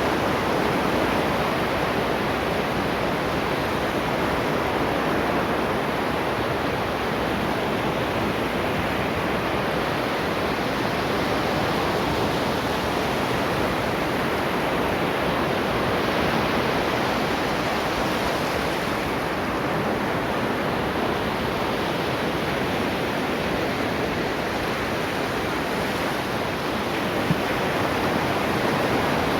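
Ocean waves washing on the shore, a steady, even rush of surf without distinct breaking swells.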